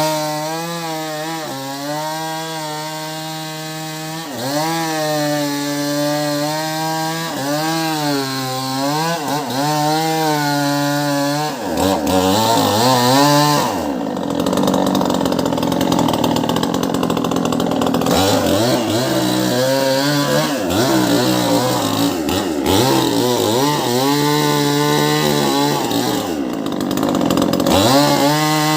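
Two-stroke chainsaw cutting through a tree trunk during felling, running hard with its engine pitch dipping and recovering again and again as the chain bites. From about twelve seconds in the pitch swings more widely under heavy load, then the saw settles back to a steady high speed near the end.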